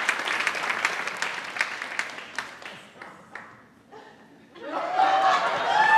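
Theatre audience applause dying away over about three seconds. After a short lull, a voice calls out in sliding, rising and falling tones near the end.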